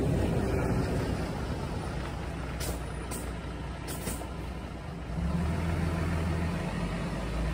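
Low, steady engine rumble of a motor vehicle running nearby, settling into a steadier low hum about five seconds in.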